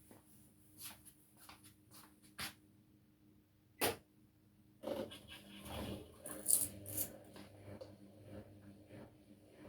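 Front-loading washing machine running a wash cycle: a few separate soft knocks and clicks, then from about five seconds in a busier stretch of tumbling and sloshing of wet laundry in the drum.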